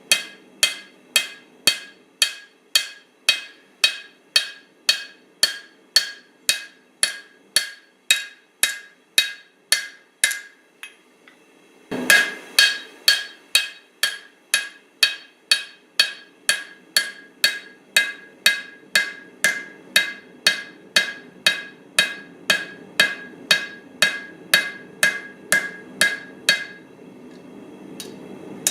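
Blacksmith's hammer striking hot steel on an anvil, about two ringing blows a second, while drawing out the blade of a small cleaver. There is a short pause about eleven seconds in, then heavier blows resume and stop near the end. A steady low rush runs underneath throughout.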